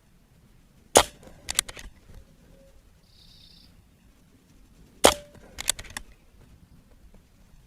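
Two shots from a moderated .22 Barra 1100Z PCP air rifle, about four seconds apart. Each is a sharp crack followed within half a second by a few quick clicks.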